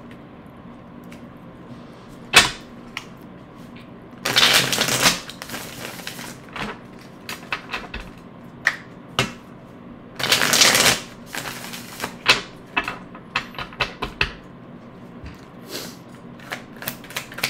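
A deck of tarot cards being shuffled by hand: scattered taps and flicks of cards, a sharp snap a couple of seconds in, and two longer rustling runs of shuffling about four and ten seconds in.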